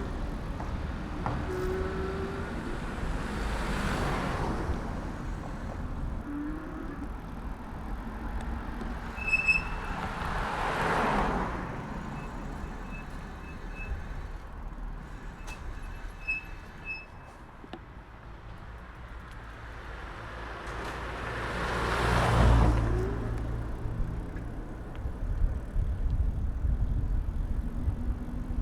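Passing traffic heard from a moving bicycle: three vehicles go by, swelling and fading, about 4, 11 and 22 seconds in, the last the loudest. Underneath is a steady low rumble of road and wind noise on the handlebar-mounted camera.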